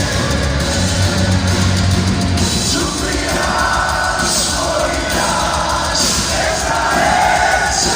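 Live heavy metal band playing in a large hall: distorted electric guitars, bass and drums, with sung vocal lines.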